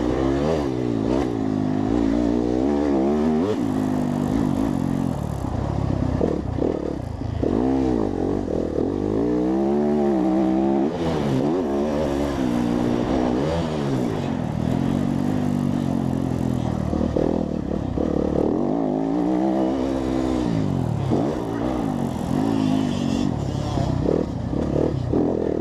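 Four-stroke motorcycle engine revving, its pitch rising and falling back again and again, with an aftermarket or stock slip-on exhaust note.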